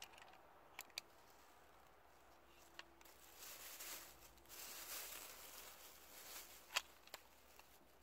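Faint crinkling of a thin plastic bag being handled, with a few small clicks. The sharpest click comes near the end, as the metal hook of a hand-held luggage scale is clipped onto the bag's handles.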